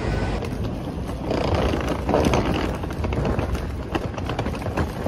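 Rolling suitcase wheels clattering over stone paving as a stream of quick clicks and rattles, over the steady rumble of a busy street.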